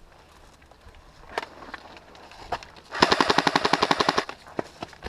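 Airsoft electric gun (AEG) firing a full-auto burst, a fast rattle of shots lasting just over a second, starting about three seconds in. A couple of single sharp cracks come before it.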